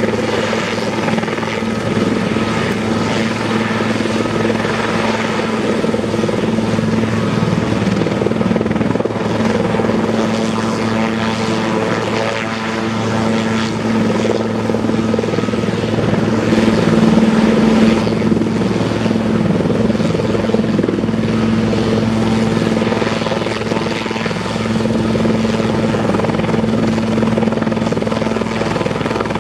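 Sikorsky S-76A helicopter taxiing on the ground, its twin turbine engines and main rotor running. The sound is a steady, even engine-and-rotor noise with a constant low hum.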